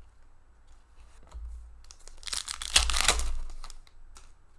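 Foil trading-card pack wrapper tearing and crinkling for about a second and a half in the middle, with a few light clicks of cards being handled before and after.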